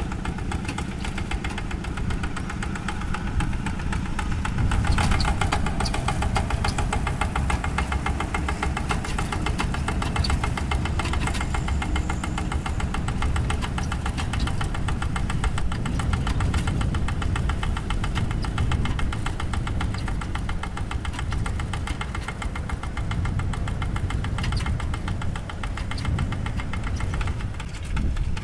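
Single-cylinder Kubota diesel engine of a Quick G1000 Boxer two-wheel hand tractor running steadily under load as it pulls a plough, with a rapid, even diesel knock. It grows a little louder about five seconds in.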